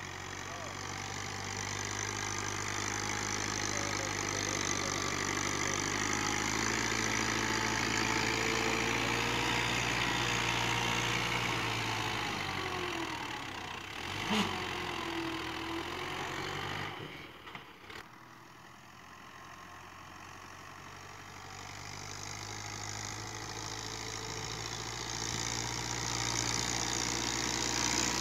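Ghazi tractor's diesel engine running steadily while its front blade pushes soil. It grows louder over the first few seconds, drops away with a couple of sharp clicks a little past the middle, then builds up again toward the end.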